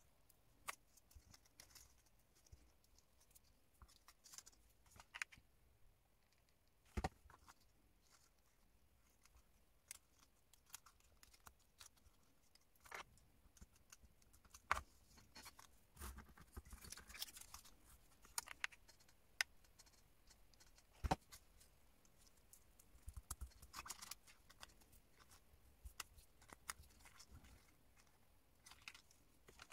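Faint handling of cardstock paper flower pieces: scattered small taps and clicks, with brief paper rustling twice.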